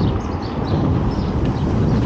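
Loud, steady street noise: a continuous traffic rumble, with faint short high chirps over it.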